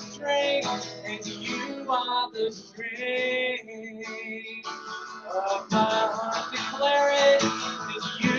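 A man singing a worship song in long held notes while strumming chords on an acoustic guitar.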